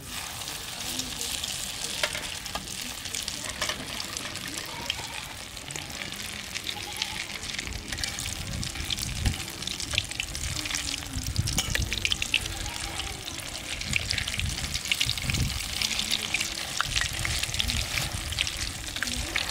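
Egg frying in bubbling oil in an iron kadai: a steady sizzle full of small crackling spits. A metal spatula scrapes and pushes the egg around the pan.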